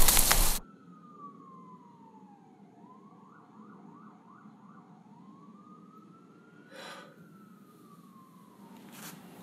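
A distant emergency-vehicle siren wailing, its pitch sliding slowly down and up, with a short stretch of rapid yelping a few seconds in. It follows a brief burst of loud rushing noise that cuts off within the first second, and two light knocks sound later on.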